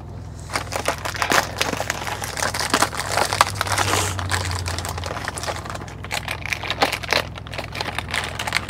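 Plastic packaging of seasoned laver (gim) crinkling as it is handled: a dense run of quick crackles, busiest in the first half and sparser toward the end.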